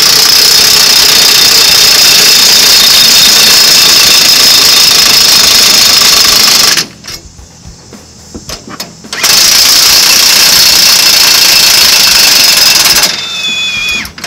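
Impact wrench hammering new rear-axle U-bolt nuts tight over the leaf spring and lift block. It runs loud and continuously for about seven seconds, stops for two seconds, then runs again for about four seconds before stopping near the end.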